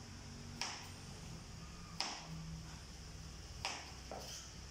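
Kitchen knife cutting through a vegetable onto a plastic cutting board: three sharp knocks about a second and a half apart, with a softer one near the end.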